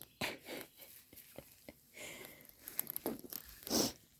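Goats browsing on weeds close by: irregular tearing and crunching of plant stems and leaves, with a few sharp snaps.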